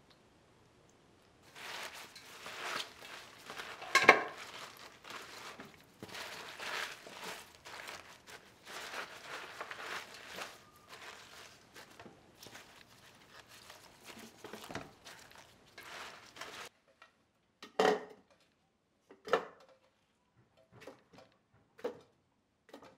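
Gloved hands tossing and rustling a heap of salted Korean scallions in a stainless steel bowl, a continuous wet rustle with a sharp clink against the bowl about four seconds in. It stops suddenly, and then come several separate knocks of pear and onion pieces dropped into a plastic blender jar.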